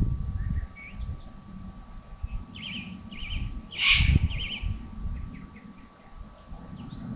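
Birds calling: a series of short chirping trills, with a louder hissing call about four seconds in, over a low rumble.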